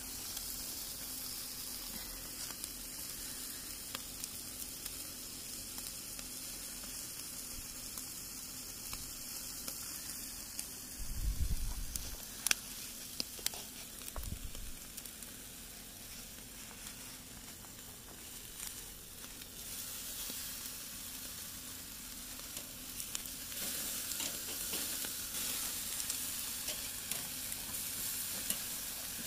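Food sizzling on a hot grill, a steady hiss, with a low thump and a sharp click about halfway through.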